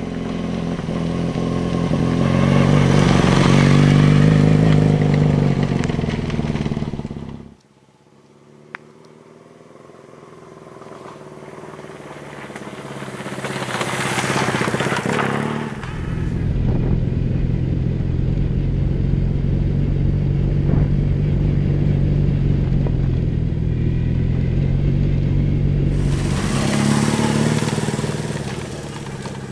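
BMW R1150GS's boxer twin through a Staintune aftermarket exhaust, riding past on a gravel track several times. The engine note swells as the bike comes close and falls as it passes. The sound cuts off abruptly twice, after about seven seconds and again around sixteen seconds.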